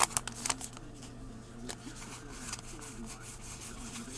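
Trading cards sliding and rubbing against one another as a stack is handled and flipped through. There is a sharp snap right at the start and a few faint clicks after it, over a low steady hum.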